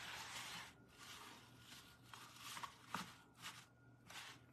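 Faint rustling and rubbing of hands smoothing an adhesive stencil down onto a small metal baking pan, with a few short scrapes and soft ticks.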